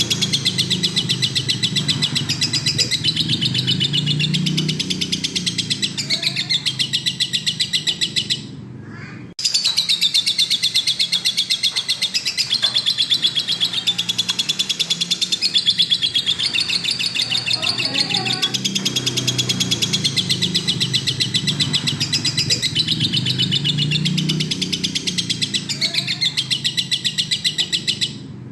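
Lovebird singing a long, rapid, unbroken chattering trill, the full 'gacor' song. It breaks off for about a second about eight seconds in, then resumes, and stops again near the end.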